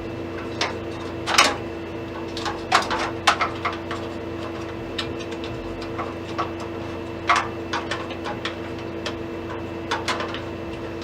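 Scattered clicks and knocks of metal computer-case parts being handled: thumb screws undone and the power supply bracket taken off the chassis. A steady hum runs underneath.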